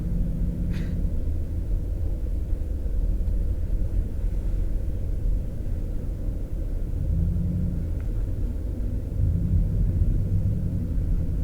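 Car engine and road noise heard inside the cabin while driving, a steady low rumble. The engine note rises a little a couple of times in the second half.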